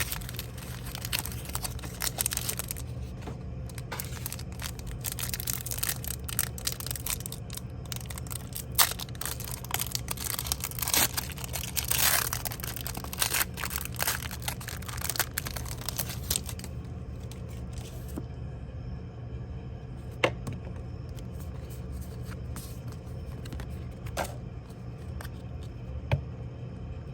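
Plastic blister packaging of a Pokémon card pack being torn and crinkled open, a dense crackling for about the first two-thirds, then only a few scattered clicks and rustles. A steady low hum runs underneath.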